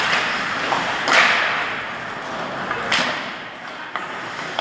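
Ice hockey play: skate blades scraping the ice and sharp stick-and-puck hits, the loudest about a second in and another about three seconds in.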